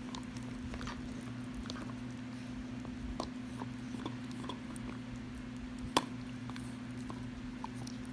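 A pit bull gnawing a bone-shaped chew, teeth clicking and crunching on it irregularly, with one sharp click about six seconds in. A steady low hum runs underneath.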